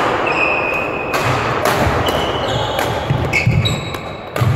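Badminton doubles rally: rackets hit the shuttlecock with sharp cracks several times, while court shoes squeak on the sports-hall floor and footsteps thud.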